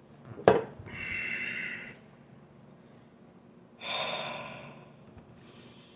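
A sharp knock about half a second in, then a person's noisy gasping breaths: two about three seconds apart and a fainter one near the end, as they strain to hold back burps from fizzy sparkling water.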